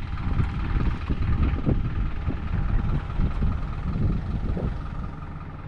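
Vehicle engine and road rumble heard from inside the cabin, steady and low, easing off slightly near the end.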